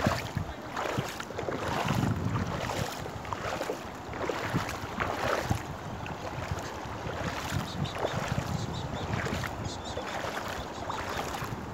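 Shallow seawater sloshing and splashing irregularly as people wade through it, over a steady rushing background.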